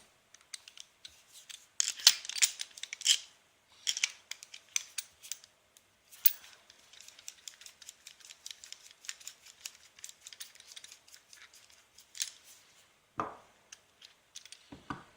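Small metal clicks and scrapes of hand tools working on a padlock as it is taken apart, with a fast run of fine clicks in the middle and a few knocks near the end.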